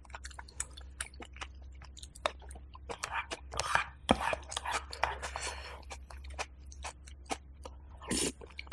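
Close-miked chewing and wet mouth sounds of eating rice porridge, with sharp clicks and scrapes of a metal spoon against an earthenware pot, over a low steady hum.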